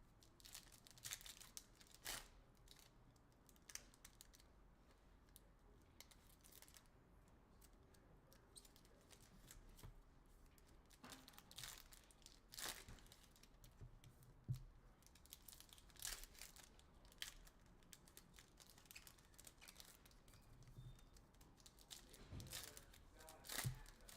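Faint tearing and crinkling of the wrapping on a 2022 Panini Illusions football card box, in scattered short crackles.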